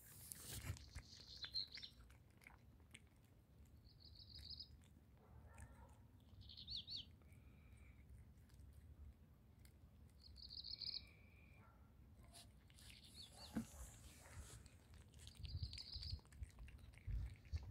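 A small bird chirping in short high phrases, repeated every few seconds, with faint clicks of a cat chewing slices of sausage.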